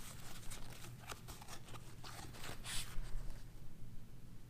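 Crinkling and rustling of thin white packing wrap being pulled open off a pistol slide, a run of quick irregular crackles that stops about three seconds in.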